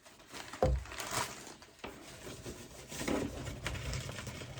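Handling noises from unpacking stone specimens: rustling of packing material with scattered light knocks, and a low thud a little over half a second in.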